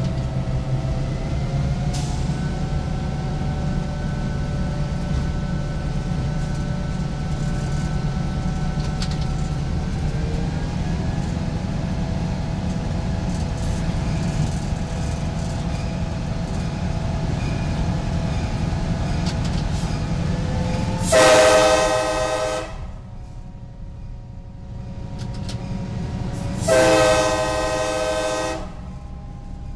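Boston & Maine EMD F7A diesel locomotive 4266 heard from inside its cab, running steadily with a low engine rumble and a faint whine. About 21 and 27 seconds in, its air horn sounds two long blasts for a road grade crossing just ahead.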